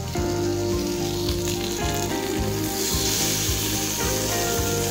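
Masala-marinated whole fish sizzling as it is laid on a hot, oiled grill pan; the sizzle grows louder about halfway through. Background music with a steady beat plays underneath.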